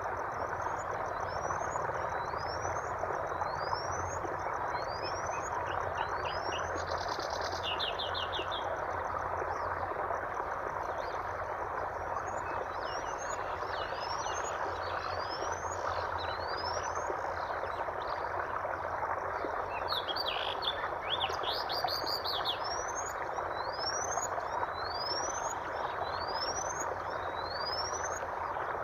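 Birds calling, one giving runs of short rising chirps about one or two a second, with a few quick trills around a quarter of the way in and again about two-thirds through, over a steady, even background noise.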